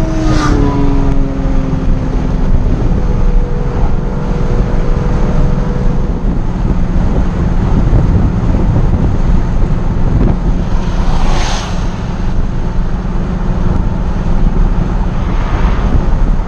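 Nissan 370Z's V6 engine with road and wind noise at highway speed, heard from inside the cabin. The engine note falls in pitch over the first couple of seconds, then runs steady and loud, with a brief rushing surge about eleven seconds in.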